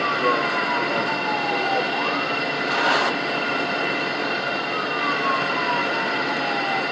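Steady road and engine rumble inside a moving ambulance, with a siren wailing, muffled by the cabin: its pitch falls slowly for about two seconds and then jumps back up, twice. A short hiss sounds about three seconds in.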